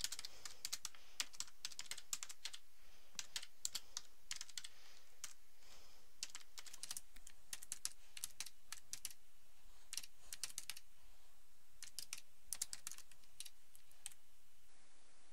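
Typing on a computer keyboard: quick runs of keystrokes with short pauses between them, over a faint steady hiss.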